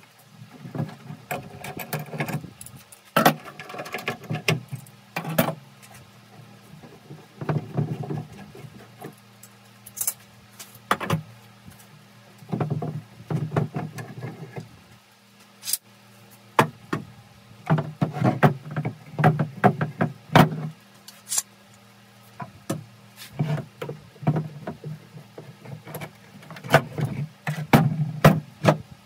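Tools and wood being handled: irregular clatter, knocks and rattles in short clusters every few seconds, over a low steady hum.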